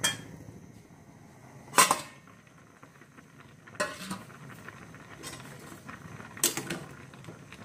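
A stainless steel pot lid clanking against metal twice, about two and four seconds in, with a few lighter clinks near the end. Under it, the pan of sliced bitter gourd bubbles at a rolling boil.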